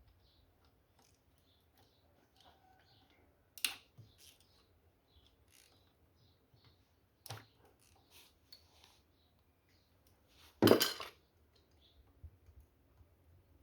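Metal hand tools and engine parts clinking and tapping during motorcycle engine work, with three sharp metallic knocks, the last and loudest near the end.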